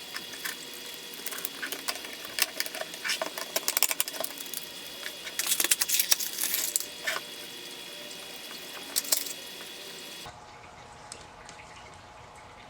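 Hard plastic and metal parts clicking, knocking and rattling in irregular clusters as printed assembly halves and a battery are handled and fitted together. The clatter stops about ten seconds in.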